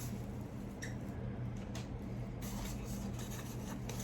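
Faint rustling and handling noises, a few soft brushes scattered through, over a steady low hum.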